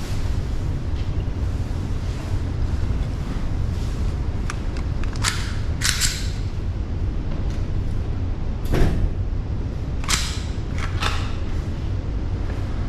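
Steady low rumble with scattered sharp cracks of distant pistol fire: two about five to six seconds in, a heavier thump near nine seconds, and three more around ten to eleven seconds.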